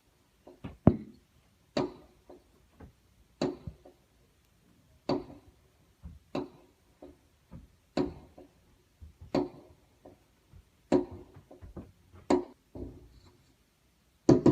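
Fireworks going off: a sharp bang about every second and a half, with smaller pops between, each fading in a short echo.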